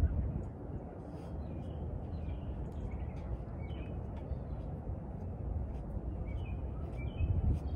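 Small birds chirping in short scattered calls over a steady low rumble of outdoor noise.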